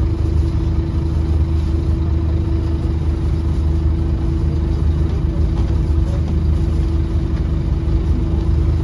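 Scania OmniCity bus's diesel engine running steadily, heard from inside the passenger cabin: a constant low drone with a steady hum.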